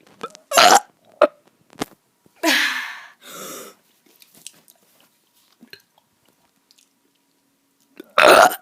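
A kid burping: a short loud burp under a second in and another near the end, with a breathy rush of air and a few small mouth clicks between.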